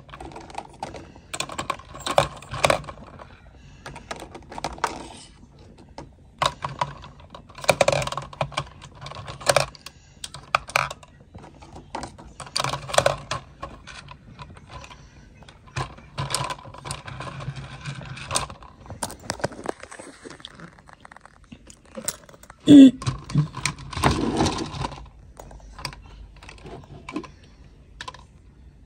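Packaging and items being handled and unwrapped: irregular clicks, taps and rustles of plastic and cardboard. A single louder sharp sound comes about three-quarters of the way through.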